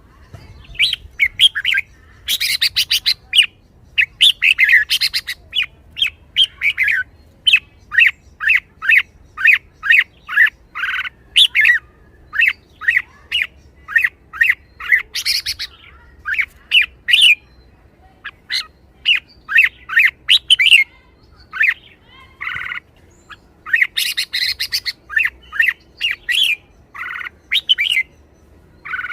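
Red-whiskered bulbul singing a rapid string of short, bright chirps and whistled phrases almost without pause, in the lively excited style prized in caged song birds.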